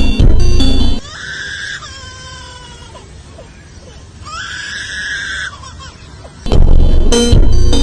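Loud music breaks off about a second in. In the quieter stretch an animal gives two high, drawn-out cries about three seconds apart, with fainter falling calls between them. The music returns near the end.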